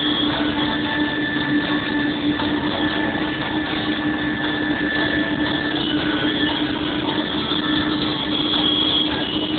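PistenBully snow groomer running steadily, its engine giving a constant hum.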